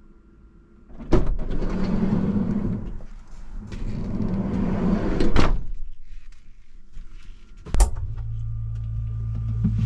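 Door sounds: a sharp click about a second in, several seconds of rolling noise ending in a knock near five seconds, then a refrigerator door clicking open near the end, followed by a steady low hum.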